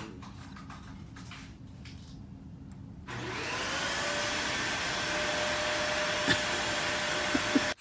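An electric motor appliance switched on about three seconds in: its whine rises in pitch as it spins up, then runs steadily until it cuts off suddenly at the end.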